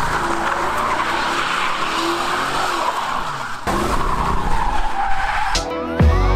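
Mercedes E55 AMG's supercharged V8 running hard as the rear tyres spin and screech in a burnout, the tyre screech the loudest sound. Music comes in near the end.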